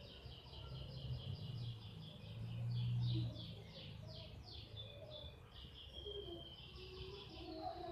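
Small birds chirping, a fast, continuous run of repeated high notes, over a low background rumble that swells briefly about three seconds in.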